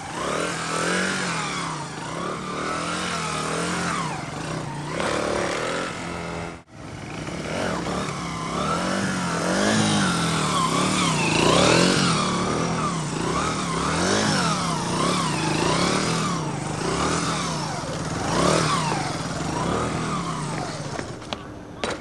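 Honda XR100 motard's single-cylinder four-stroke engine revving up and down again and again as the bike is ridden through wheelies, with a sudden break about a third of the way in.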